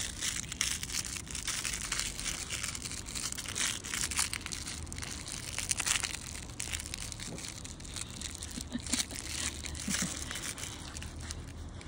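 Crinkle material inside a plush dog toy crackling and rustling irregularly as a puppy chews and tugs on it.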